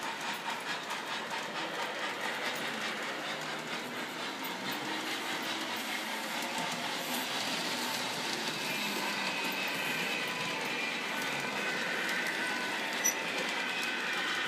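O gauge model train running on its track: a steady electric motor whine with the wheels clicking over the rail joints, and one sharp click about thirteen seconds in.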